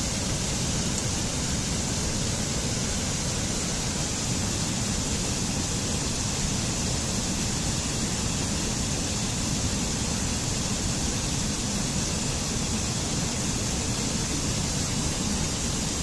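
Steady, even rush of a waterfall.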